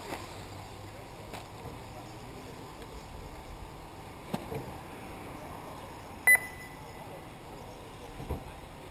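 Radio-controlled short-course trucks running on a dirt off-road track, a steady low noise with a few faint knocks. A short, sharp electronic beep about six seconds in is the loudest sound.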